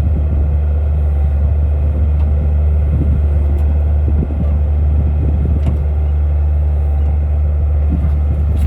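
Skid steer engine running steadily, a deep low drone with faint clicks and rattles over it.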